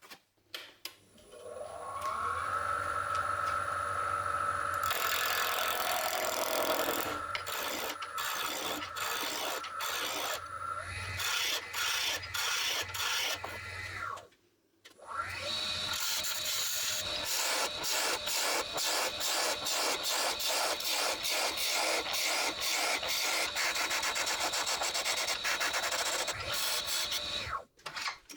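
Wood lathe running with a turning tool cutting into a spinning wooden blank: a steady motor hum and whine under a fast, even scraping chatter. It stops for about a second around the middle, then starts again with a higher whine.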